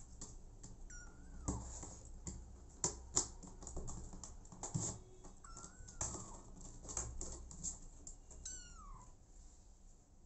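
A tabby kitten gives three short, high mews about four seconds apart, each falling in pitch, while nestled against a grey mother cat in a plastic carrier. Irregular soft clicks and rustles run between the mews.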